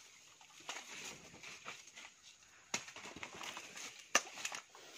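Rustling of plant stalks and dry leaves, broken by two sharp cracks, the louder one near the end, as thick green plant stalks are harvested by hand.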